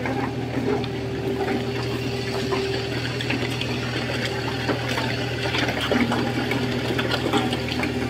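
Road roller engine running steadily with a constant low hum, and sharp clicks scattered throughout.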